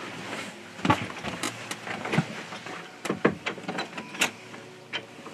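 Irregular knocks and clicks of footsteps along a passage, then a hand working the latch of an old wooden door that is locked and will not open.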